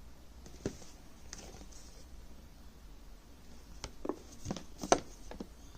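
Hands unpacking and handling a newly arrived BFS baitcasting reel: scattered light clicks and rustles, the sharpest about five seconds in.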